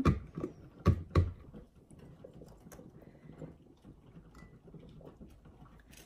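Whole pickling cucumbers being pushed down into a glass canning jar: sharp knocks at the start and twice about a second in, then faint scattered tapping and rubbing against the glass.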